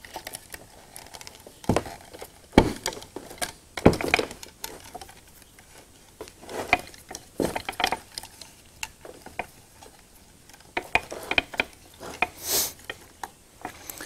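Electrical wire being pushed and worked into a light fixture's wiring compartment by hand: irregular light clicks, taps and rustles of the wire and fixture housing, with a few sharper knocks.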